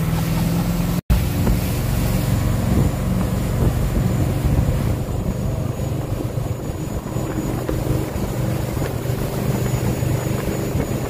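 Motorboat engine running steadily at towing speed, with water rushing in the churning wake. The sound cuts out for an instant about a second in.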